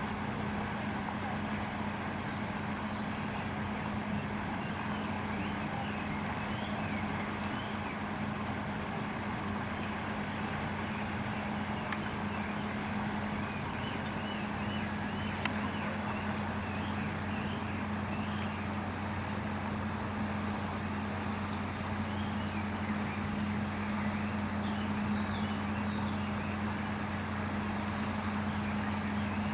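Steady low hum over a constant haze of outdoor background noise, with a few faint ticks.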